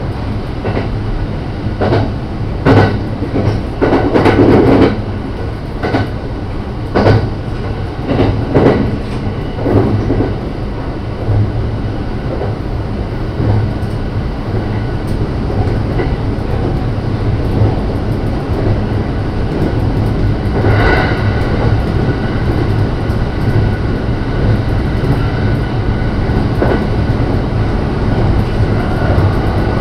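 Rapid Marine Liner electric train (JR Shikoku 5000 series coupled with a JR West 223 series 5000 set) running at speed, heard from inside the leading car. There is a steady running hum, and over the first ten seconds the wheels click sharply and unevenly over rail joints before the noise settles to an even rumble.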